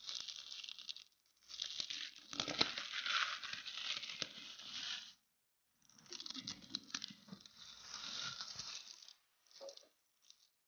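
Clear plastic wrap on a cardboard box crinkling and tearing as it is cut with scissors and pulled off, in three long stretches of rustling with short gaps, then two brief rustles near the end.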